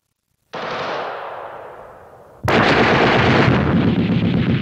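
Battle sound effects. A sudden blast whose noise dies away over about two seconds, then heavy rapid gunfire breaking out about two and a half seconds in, in the manner of machine-gun fire.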